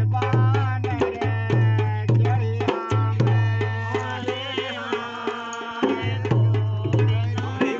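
Several rope-laced dholak barrel drums, played by hand, and small kettle drums beaten with pairs of sticks, all playing a fast Holi phagua rhythm together. Dense, quick strokes run over a deep bass drum note that sounds in stretches of about half a second to a second.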